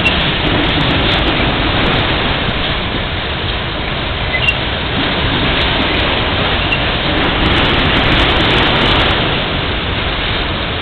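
Freight train of autorack cars rolling past at steady speed: a loud, even rumble and rush of steel wheels on the rails, with a couple of faint brief squeaks.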